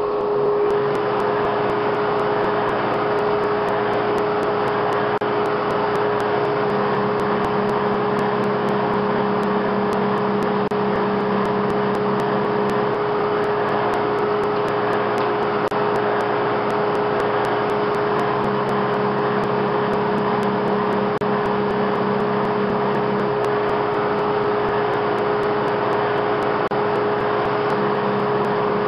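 A ShopSmith driving a shop-built drum thickness sander runs steadily with a dust collector while a board is fed through it, a steady whine over the noise. A lower drone comes and goes several times.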